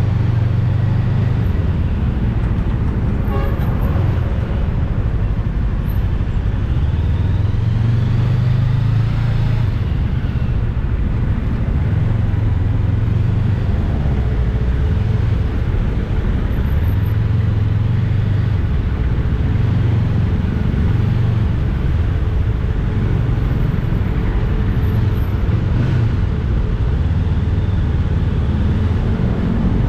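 Rusi Cyclone 400S motorcycle being ridden in traffic: its engine runs with a low rumble that swells and eases several times as the throttle changes, over steady road noise.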